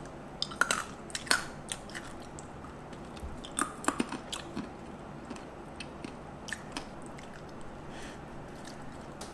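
Close-up crunching and chewing of a flavoured almond. Sharp crunches come in a cluster in the first second or so and again around four seconds in, then thin out to occasional faint chewing sounds.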